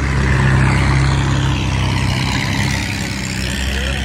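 Long-tail boat's engine running steadily under way, heard from aboard, with a steady rushing hiss over its low hum.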